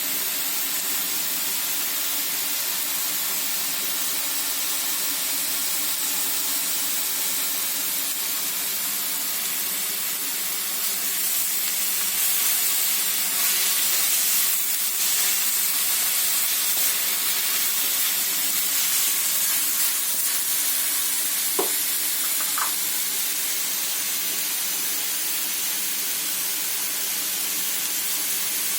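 Chopped onions sizzling steadily in hot oil on a tava as they fry toward golden brown, a little louder for a few seconds midway, with two short clicks about three-quarters of the way through.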